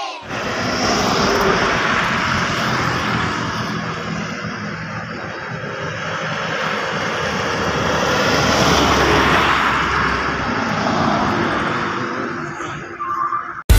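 Traffic passing close on a highway: truck engines and tyre noise swell as vehicles go by, once just after the start and again about eight to nine seconds in, then fade.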